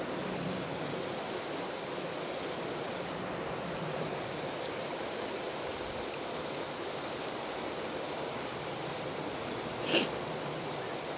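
Steady rushing of a flowing stream, with one brief sharp noise about ten seconds in.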